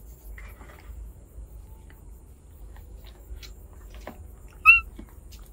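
A pet monkey gives one short, high squeak about three quarters of the way in, over a low steady rumble and a few faint clicks.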